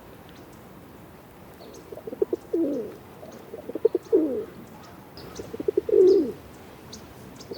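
Pigeon cooing: three phrases starting about two seconds in, each a quick run of short pulses ending in a longer, falling coo.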